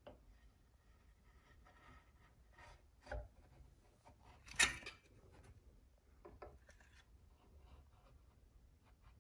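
Faint rubbing and handling noises, with a knock about three seconds in and a louder sharp clack about a second and a half later, then a few small clicks.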